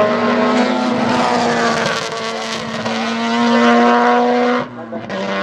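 Sports sedan race cars' engines running hard at racing speed, a steady, loud engine note that swells a little, then briefly drops away near the end before coming back.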